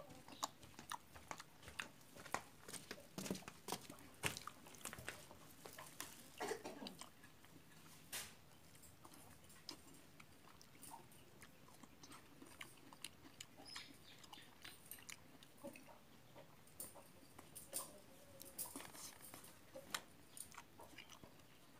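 A person biting and chewing slices of soft ripe papaya, with faint mouth sounds and many small clicks throughout.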